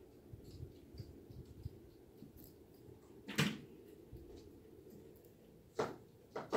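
A kitten playing on carpet: a few short, sharp taps and thumps over faint room noise, one about three and a half seconds in and two more near the end.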